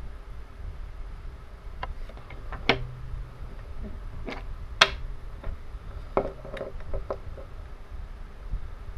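Learning Curve wooden Thomas and Percy toy engines clicking and knocking against each other and the tabletop as they are handled, picked up and set down. A scatter of sharp taps, the two loudest about a third of the way in and halfway through, over a low steady rumble.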